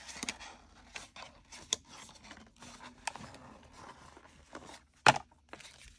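Hands handling a small cardboard box and its packaging: scattered scrapes, rubs and light rustles, with a sharp tap about two seconds in and a louder sharp knock about five seconds in.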